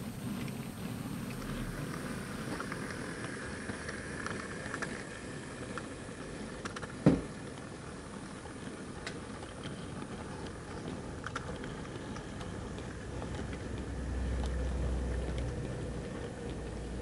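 Model railway wagons running along the layout track: a steady low rumble of wheels and running gear with scattered light clicks. There is one sharp click about seven seconds in, and the rumble swells near the end as the wagons pass close by.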